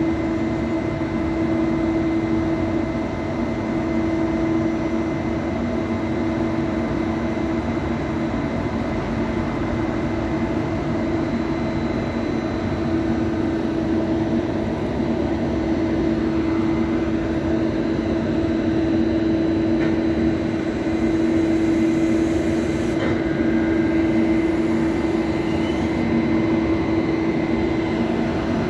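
Trenitalia E.401 electric locomotive and Intercity coaches at a platform, giving off a steady electrical and fan hum with several held tones over a constant rushing noise.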